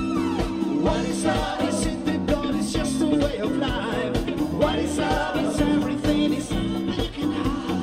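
Live band playing upbeat dance music with a steady beat and singing, heard over a loudspeaker system.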